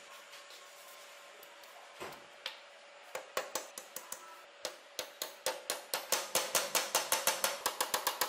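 Small hammer tapping metal pins to peen them through a wooden knife handle. A few scattered taps come first, then a quickening run of light taps, about five a second, growing louder toward the end.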